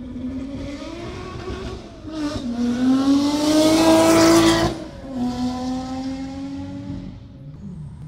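Ferrari sports car engine revving hard, its note climbing in pitch and loudness to a peak about four and a half seconds in. It then drops abruptly to a lower note that eases off and begins to climb again near the end.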